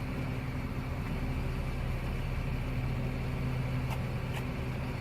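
Steady low engine hum of a vehicle idling, with two faint clicks about four seconds in.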